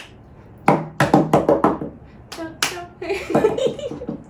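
Hands tapping out a quick rhythm of sharp strokes, a run of about six about a second in and two more a little later, beating out a song's melody rhythm for others to guess. Voices follow near the end.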